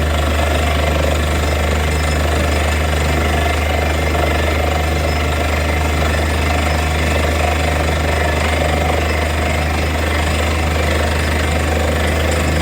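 Borewell drilling rig running steadily: a heavy engine hum under the continuous rapid hammering of the drill.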